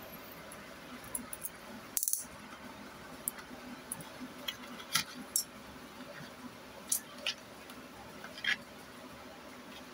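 Clear plastic clamshell packaging being handled and worked open, giving short scattered clicks and crackles of stiff plastic, the loudest a quick cluster about two seconds in.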